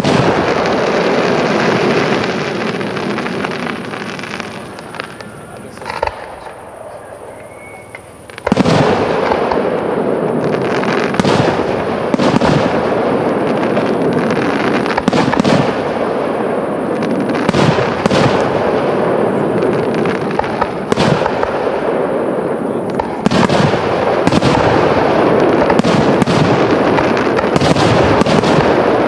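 Aerial firework shells bursting in a dense barrage of bangs and crackle. The barrage eases off for a few seconds, with a lone bang about six seconds in, then comes back loudly at about eight and a half seconds with rapid, sharp reports.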